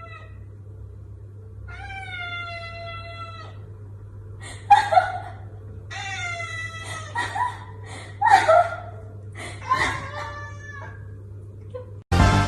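A cat meowing: two long, drawn-out meows, then a run of shorter, louder yowls, over a steady low hum. Music starts abruptly near the end.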